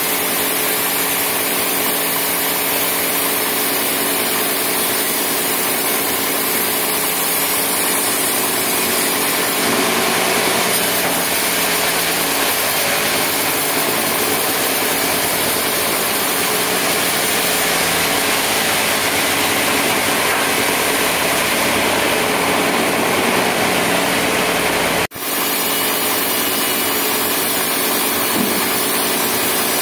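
Large sawmill band saw running and cutting a teak beam into boards: a loud, steady machine hum and blade noise. About a third of the way in the sound grows fuller and rougher, and near the end it drops out for an instant before resuming.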